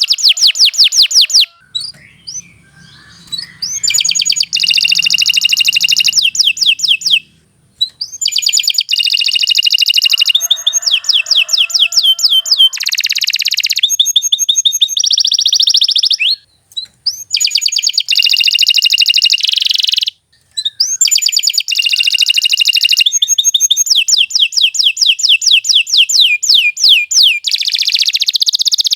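Domestic canary singing a long, loud song of fast trills: runs of rapidly repeated high notes, one tour after another, with a few brief pauses.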